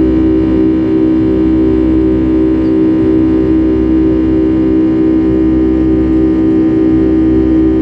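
Steady drone of a Boeing 757-300's jet engines heard inside the passenger cabin: an unchanging low rumble with a strong, steady hum on top.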